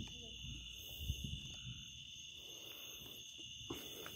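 Steady high-pitched trill of night insects, with a few low thumps and scuffs of handling close to the microphone.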